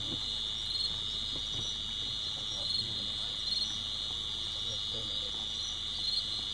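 Crickets chirring in a steady high-pitched night chorus, with louder pulses recurring about once a second.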